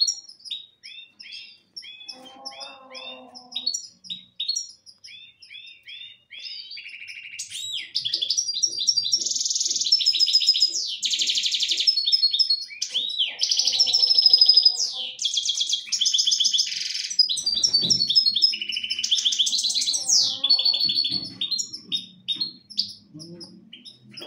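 Caged goldfinches singing: quick twittering chirps, then from about eight seconds in a louder run of fast trills and buzzy phrases that lasts until about twenty-one seconds.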